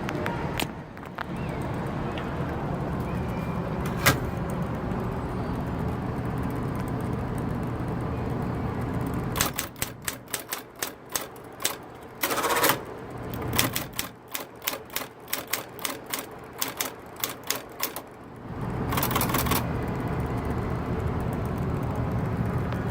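Smith Corona Coronet Automatic electric typewriter. Its motor hums steadily, then a fast run of keystrokes clatters for about nine seconds. Two longer rasping bursts fall within that run and just after it.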